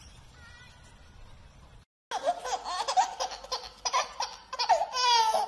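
After a quiet first two seconds, a baby laughing in repeated loud bursts, as a dog nuzzles and licks at its hand.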